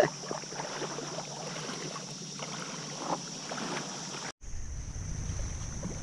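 Steady high-pitched insect drone with scattered faint rustles and clicks. About four seconds in, after a brief cut, a low wind rumble on the microphone joins the drone.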